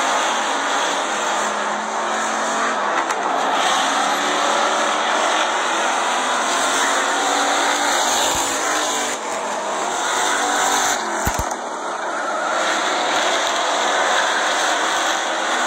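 Purestock race cars' engines running as the field laps a short oval, a steady loud din of several cars at once.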